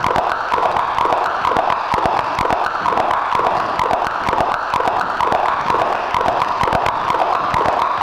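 Experimental electronic music: a dense, unbroken texture of many short blips and clicks, thickest in the middle range, with no beat.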